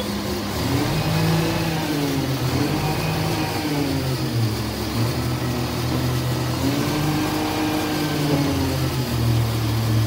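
Rear-loader garbage truck's diesel engine running with a steady low hum, revving up and back down twice.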